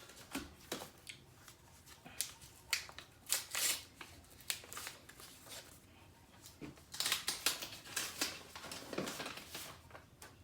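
Greeting card and its paper being handled: short bursts of paper rustling and crinkling, busiest from about seven seconds in.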